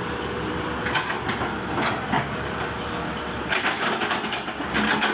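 Crawler hydraulic excavator running as its bucket scoops up and lifts a rubber tyre. The engine and hydraulics hum steadily under irregular clatters and knocks from the bucket and linkage.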